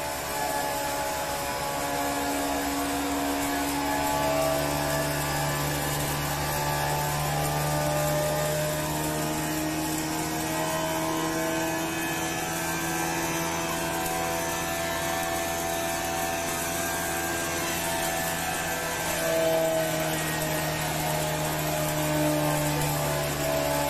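Flour mill's electric motor and belt-driven grinding machine running steadily while grain is fed through its hopper: a loud, even machine hum with several steady tones, a deeper tone strengthening about four seconds in.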